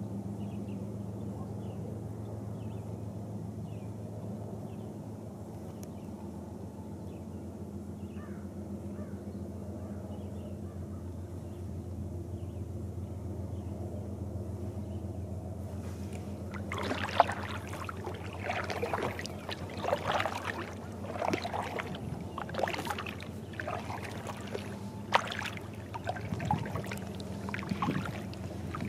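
Kayak paddle dipping into calm lake water from about halfway through, with irregular splashes and drips off the blade. Before that only a steady low hum and a few faint bird chirps.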